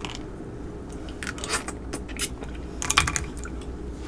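Close-miked mouth sounds of eating seafood boil: chewing and crunching, with a few sharp crackles about a second apart, over a steady low hum.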